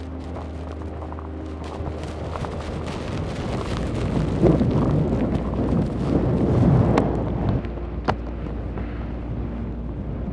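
Strong wind buffeting the microphone in a low, rushing rumble, swelling into a heavy gust about four seconds in and easing off toward the end.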